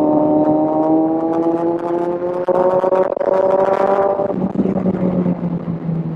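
Kawasaki Z1000's inline-four engine pulling under throttle, its note climbing steadily for about four seconds, then falling to a lower, steadier note.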